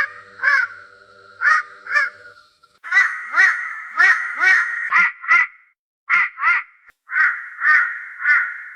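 Raven calling: a long series of short calls, about two a second, with brief pauses between runs.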